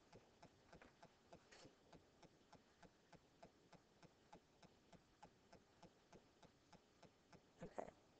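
Near silence with faint, evenly repeated ticking, about three ticks a second, and one slightly louder click near the end.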